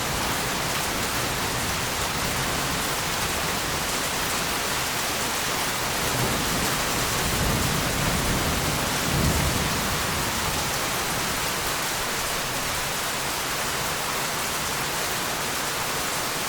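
Heavy rain falling steadily, with a low roll of thunder that swells about six seconds in and peaks a few seconds later before fading back under the rain.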